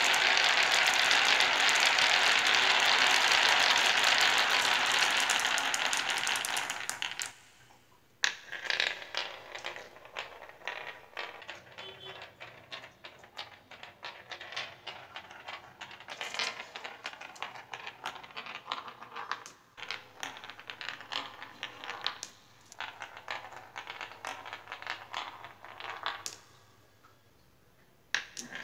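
Glass marbles rolling down a wooden slope along a winding channel. For the first several seconds there is a loud, steady rolling rumble that fades out. Then a rolling marble ticks and clatters irregularly against the curved walls of the track, goes quiet briefly near the end, and more clicks follow as marbles are set down.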